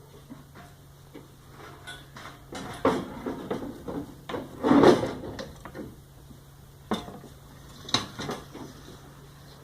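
Steel ammo cans being handled: irregular metal clanks and rattling, loudest about halfway through, followed by two sharp single knocks. A faint steady low hum lies underneath.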